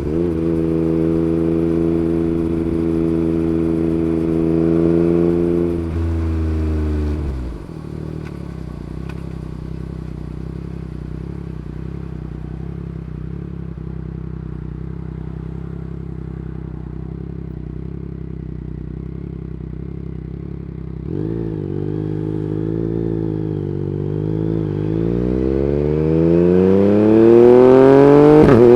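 Yamaha MT-09 gen 3's 890 cc inline-three engine through an Akrapovic Racing Line carbon exhaust: it holds steady revs for about six seconds, then drops to a low, steady idle. About 21 seconds in, the revs waver and then climb steadily toward the end as the bike accelerates.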